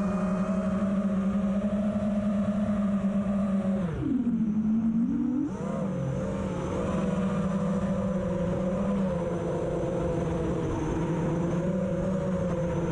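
FPV quadcopter's electric motors whining steadily. The pitch drops about four seconds in as the throttle comes off, then climbs back a second and a half later.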